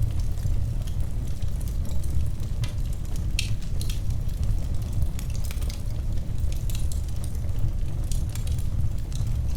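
Wood fire in a fireplace crackling: irregular sharp pops and snaps, several a second, over a steady low rumble of the flames.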